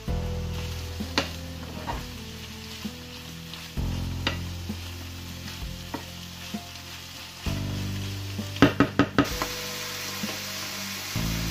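Diced onions and mushrooms sizzling as they fry in a pan, stirred with a wooden spoon that clicks and scrapes against the pan, with a quick run of sharper knocks a little past halfway. Soft background music with held chords plays underneath.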